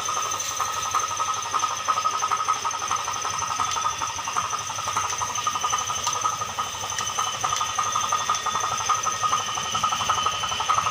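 A machine running steadily: a continuous drone with a constant high whine over it and a rapid flutter.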